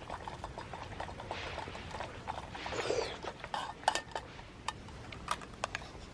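Eating sounds: scattered light clicks and knocks of utensils against camp dishes, with a couple of short soft rustles or slurps in between.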